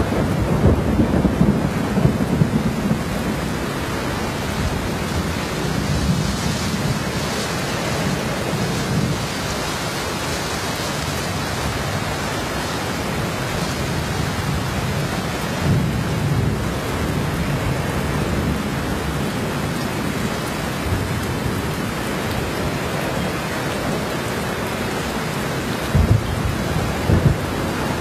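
Steady heavy typhoon rain with low rumbling surges, likely wind gusts. Two brief loud thumps come near the end.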